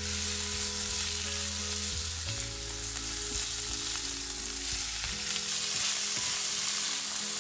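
Celery sticks and strips of dried tofu sizzling steadily in hot oil in a wok while being stir-fried and tossed with a silicone spatula.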